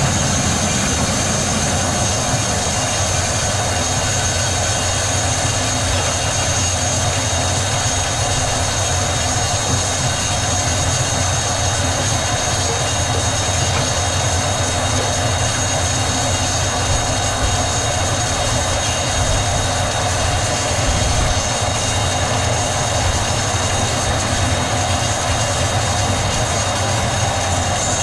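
Sawmill machinery running steadily, a constant low hum with a thin high-pitched whine over it.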